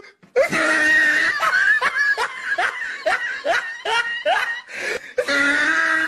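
A person laughing loudly in a string of short 'ha' bursts, about two to three a second, after an opening drawn-out vocal sound.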